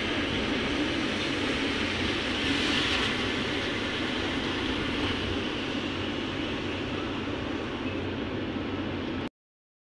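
Steady engine and tyre noise inside a moving bus cabin on a wet road. The sound cuts out suddenly near the end.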